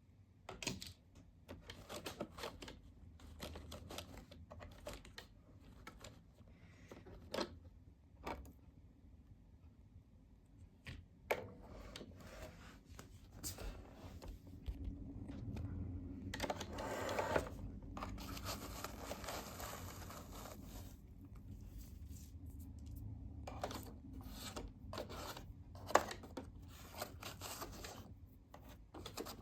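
Roomba 505 robot vacuum running over paper scraps: a low steady hum under irregular crackling, rustling and scraping as the brushes catch the paper, busiest about halfway through, with scattered sharp clicks.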